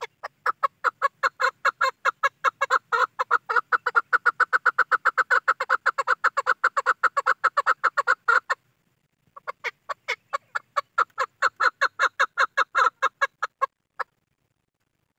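Chukar partridge (chakor) calling: a long, rapid run of repeated chuck notes, about six a second, that grows louder over the first few seconds. It breaks off briefly a little past halfway, then a second run starts and stops about a second before the end.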